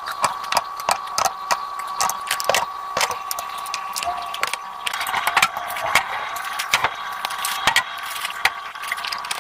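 Irregular clicks, knocks and light rattles of groceries and containers being handled and packed into a refrigerator, over a faint steady high hum.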